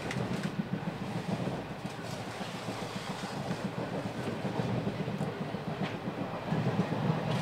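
Indian passenger train heard from inside a carriage while running: a steady low rumble with a few faint clicks and rattles.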